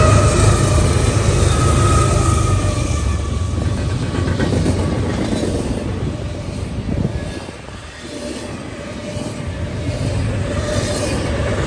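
Train passing close by: a heavy low rumble that eases about eight seconds in, then builds again, with a thin high-pitched tone over it at first.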